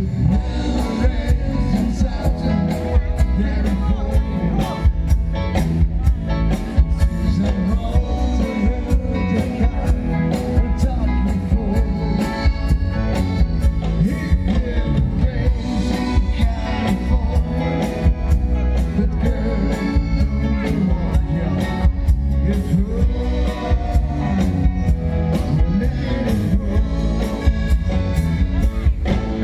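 Live band playing amplified music with electric guitars and singing over a steady beat.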